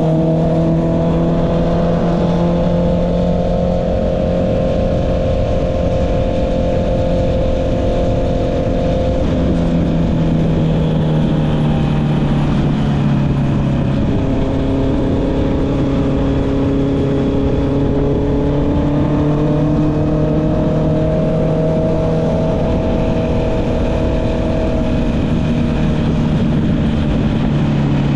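Honda CB650R inline-four with an Akrapovic exhaust, heard from the rider's seat while riding. The engine note is steady and rises and falls gently, and it steps abruptly in pitch a couple of times, about a third and half way through. Low wind rumble sits underneath.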